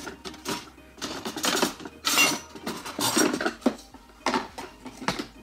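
Metal baking pan scraping and clattering as a plastic pusher tool shoves it through the slot of an Easy-Bake Oven toy oven. It comes as a series of short scrapes, with a few sharp knocks toward the end.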